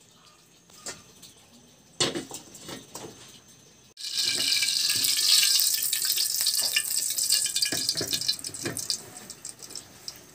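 Liquid sizzling in a hot wok over a gas flame as the wok is wiped with a cloth: a loud hiss that starts suddenly about four seconds in and dies away over several seconds. A few light clicks and knocks come before it.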